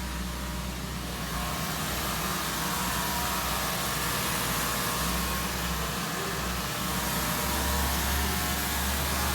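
Sawmill machinery running steadily: a continuous mechanical drone with a low hum underneath, from the mill's debarker and conveyors in operation.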